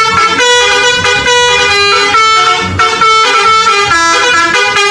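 Telolet bus horn: several air horns sounding together in a quick, unbroken run of changing notes, a horn melody.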